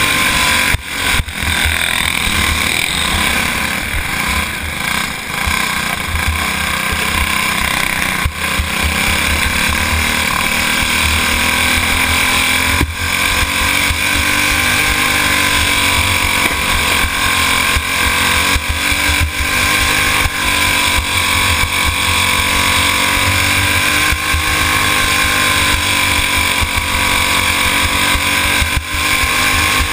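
Racing go-kart engine heard close up from the driver's seat, running hard around the track. It stays loud throughout, with its pitch rising and falling repeatedly as the kart goes through the laps.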